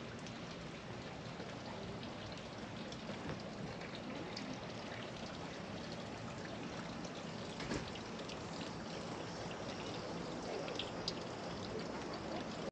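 Water trickling steadily, with scattered small drips.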